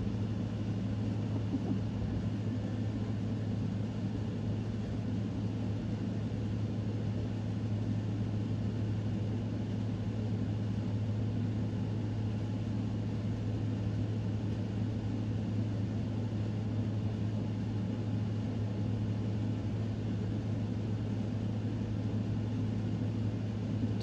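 A steady low mechanical hum that does not change.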